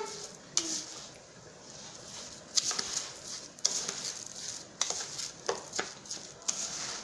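Rice stuffing with chopped tomato, onion, herbs and oil being mixed in a bowl: irregular wet stirring strokes, some louder than others.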